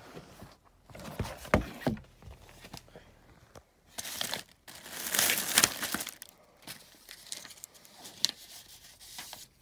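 Cardboard shoebox being handled and opened, with a few knocks in the first couple of seconds, then tissue paper rustling, loudest for a couple of seconds around the middle, with small paper and cardboard clicks after.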